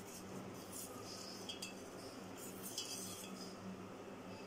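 Metal spoon stirring water and sugar in a stainless-steel bowl, faint and with a few light clinks against the steel, dissolving the sugar into the drink.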